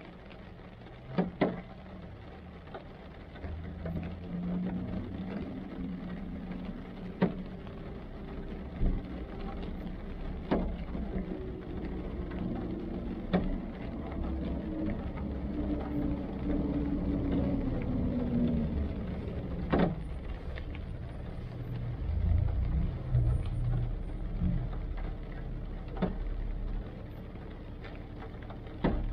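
Rain on a car heard from inside the cabin: a steady hiss with scattered sharp taps of drops hitting the roof and windshield, over the low hum of the idling engine and nearby traffic.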